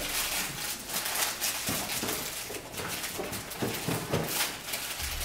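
Irregular rustling and light knocks, like things being handled and moved about.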